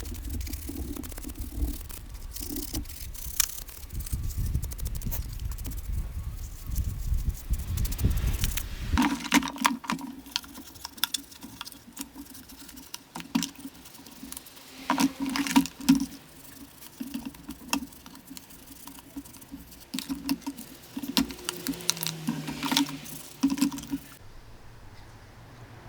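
Cleaning of a plastic speaker case by hand: irregular scrubbing and patter with frequent clicks of plastic being handled. A low rumble under the first nine seconds stops abruptly, and the scrubbing ends suddenly near the end.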